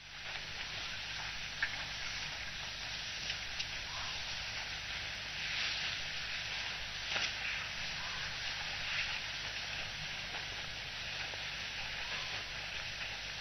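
Steady crackly hiss with scattered faint clicks over a low, even hum: outdoor waterhole ambience through a remote camera's microphone.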